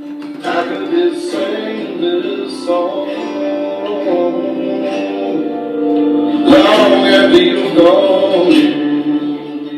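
A song with singing played back through a loudspeaker fed from a TV's optical output by a small optical-to-analog DAC. It is loudest about two-thirds of the way through.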